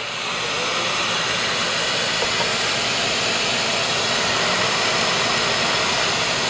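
Handheld fiber laser brazing galvanized steel with silicon bronze wire, heard together with its extraction and cooling equipment: a steady rushing hiss with a faint high whine running through it.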